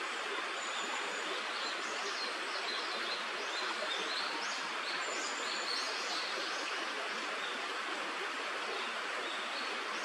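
Steady rush of stream water, with a run of short, high bird chirps from about one and a half to six and a half seconds in.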